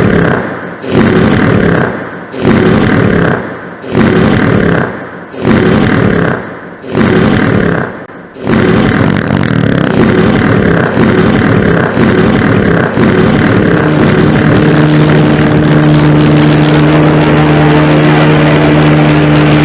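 Exaggerated cartoon stomach-growling sound effect: loud rumbles in regular pulses about every second and a half, which then merge into one continuous rumble. About two-thirds of the way through, a steady low hum comes in under it.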